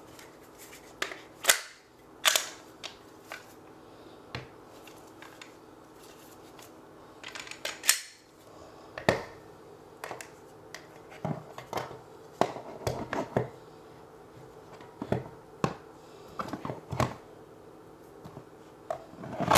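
Irregular sharp clicks and knocks of small parts and plastic boxes being handled, set down and snapped shut while gear is packed away, over a faint steady hum.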